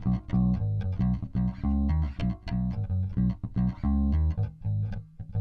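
Junior JB100 Jazz-style electric bass played fingerstyle with both single-coil pickups on and blended: a quick line of short plucked bass notes, about three or four a second.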